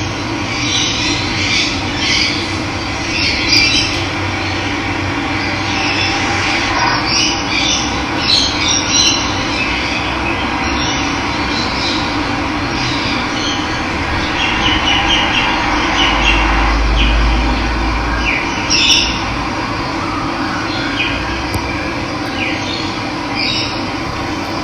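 Steady rush of running water with wild birds chirping and calling over it in short, scattered bursts. A brief low rumble comes about two-thirds of the way through.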